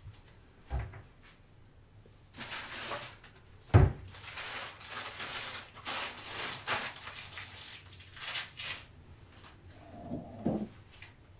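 Kitchen handling sounds: a soft knock, then a loud thud about four seconds in, like a cupboard or drawer shutting, among several seconds of rustling bursts as something is handled at the counter, and a few knocks near the end.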